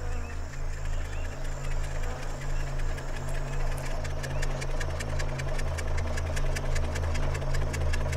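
John Deere farm tractor engine running steadily with a pulsing, knocking beat. From about four seconds in, a fast, even ticking sits over it.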